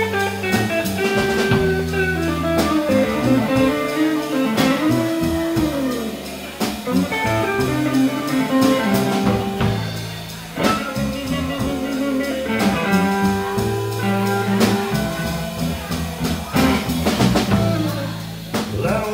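Live electric blues trio: an electric guitar plays a lead with held and bent notes, through a 5E3 tweed Deluxe-style valve amp, over bass and a drum kit keeping time.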